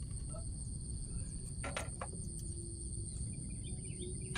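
Insects trilling steadily at a high pitch, over a low rumble of background noise, with a few faint clicks.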